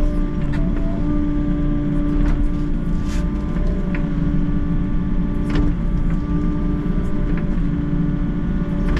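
Volvo excavator's diesel engine and hydraulics running steadily under digging load, with a strong steady hum, heard from the cab. A few short scrapes and knocks, from the bucket working the soil, rise above it near the middle.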